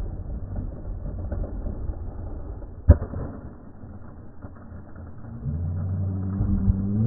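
Skateboard wheels rolling on asphalt, then one sharp clack about three seconds in as the board strikes the metal grind rail. From about five and a half seconds a steady low hum with a few tones comes in.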